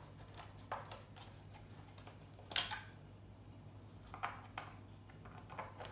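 Scattered clicks and light knocks from hands working on the circuit board and metal case of an old electronics box, a sharp click about two and a half seconds in the loudest, over a faint steady low hum.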